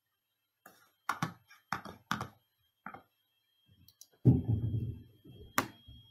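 A handful of sharp clicks at a computer, spread over the first three seconds. Then a louder, low, muffled thump with a short rumble, and one more sharp click near the end.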